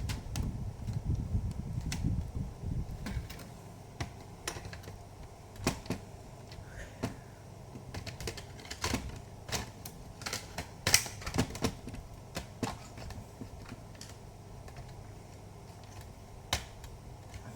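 Plastic casing of an HP Pavilion G4 laptop being pried open with a test-pen screwdriver: scattered sharp clicks as its clips give way, the loudest about eleven seconds in.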